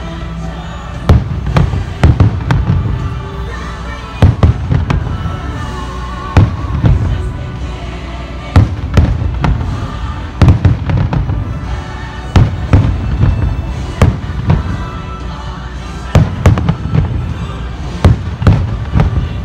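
Aerial fireworks bursting: an irregular string of sharp bangs and deep booms, sometimes coming two or three in quick succession.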